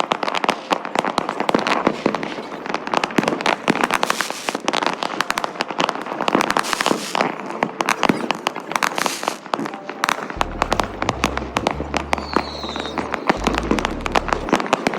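Firecrackers and fireworks going off in a dense, rapid run of sharp cracks and pops, many each second, without let-up. A short rising whistle comes about twelve seconds in.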